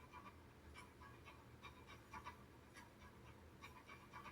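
Near silence: faint room tone with a low steady hum and scattered faint clicks.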